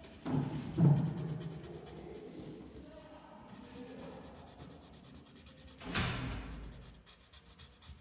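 Yellow coloured pencil scratching on paper as a shirt is shaded in. There are two thumps within the first second, as the drawing sheet is handled and turned on the table, and another bump about six seconds in.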